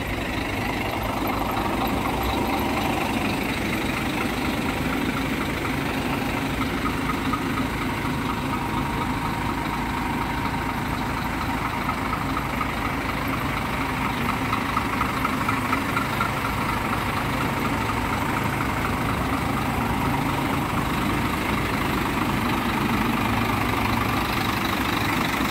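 Scania K410 coach's diesel engine idling steadily.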